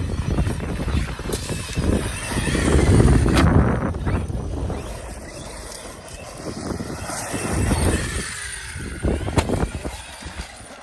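Arrma Fireteam radio-controlled car driven hard and jumped, its electric motor running in uneven bursts, with a few sharp knocks.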